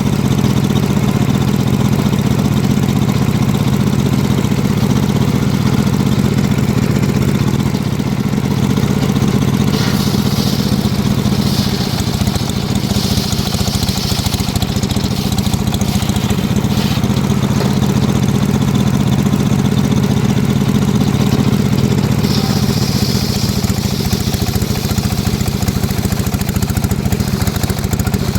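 Engine of a homemade circular sawmill running steadily, with a higher hiss rising and falling twice, the first a little over a third of the way in and the second later on.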